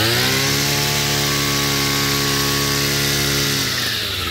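Two-stroke brush cutter engine revved to full throttle and held there at a steady high pitch. About four seconds in, the revs drop off briefly as the throttle is let go.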